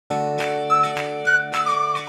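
Background music: a high, wavering melody over held chords, with a few note attacks.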